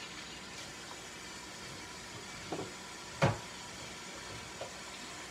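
Steady low hiss with a few knocks of kitchenware being handled at a sink. The sharpest knock comes about three seconds in, with a lighter one just before it and a faint one after.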